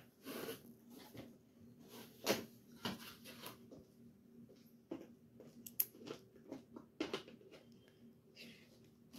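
Plastic toy parts knocking and clicking as they are handled and fitted together, with a few sharper clacks scattered through.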